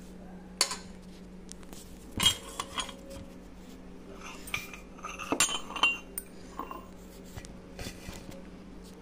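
Steel spoon and utensils clinking and knocking against steel pots and bowls, in a string of separate clinks with two busier clusters, about two seconds in and past the middle, over a steady low hum.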